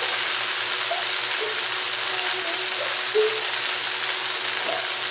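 Beef and broccoli stir-fry sizzling steadily in a hot wok.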